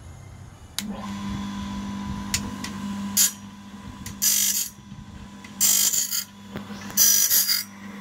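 Band-sawmill blade sharpener switched on: its electric motor starts about a second in and hums steadily. From about three seconds in, the abrasive wheel grinds the band blade's teeth one after another, a short grind roughly every second and a half, four times.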